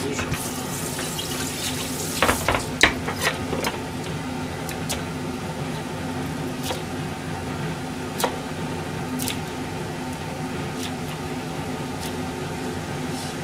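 Kitchen tap running into a sink as a plastic cutting board is rinsed, then a few clatters as the board is set down, followed by scattered knife taps as leafy greens are cut on it. A steady low hum runs underneath.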